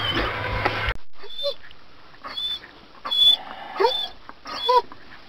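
German Shepherd dog whining in short, high-pitched, rising-and-falling cries, about one a second, worked up over the catch on the boat. A steady low hum runs for the first second before it.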